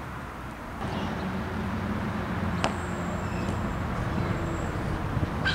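Wind buffeting the camera's built-in microphone: a steady low rumble that grows louder about a second in. A single sharp knock comes about halfway through.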